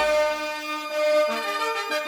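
Intro music: sustained chords with a melody line moving over them, in a reedy, accordion-like timbre.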